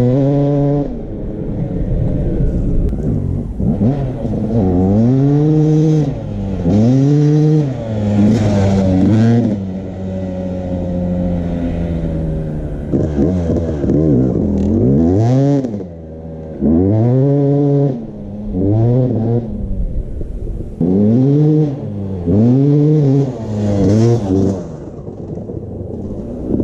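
A 2005 Yamaha YZ250 two-stroke dirt bike with an FMF pipe and silencer, ridden hard. The engine revs up and drops back over and over as it runs through the gears, with brief spells of steadier, lower running between the surges.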